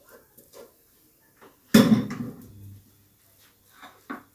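Spoon working through a plate of cooked vermicelli filling with faint small clinks, and one loud knock of dishware about two seconds in that rings out briefly; a couple of lighter knocks near the end.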